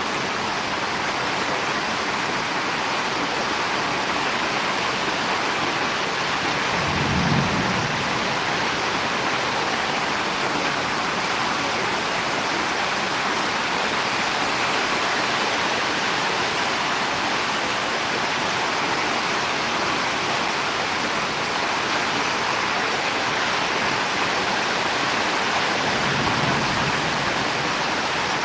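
Steady rush of rain during a storm, with a brief low rumble about seven seconds in and a weaker one near the end.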